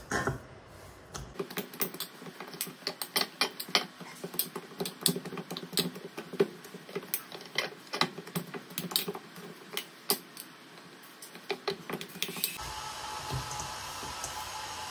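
Stiff maida dough being kneaded by hand in a stainless steel bowl: an irregular run of quick slaps and clicks, several a second, as the dough is pressed and the bowl knocks about. Near the end a steady hum comes in.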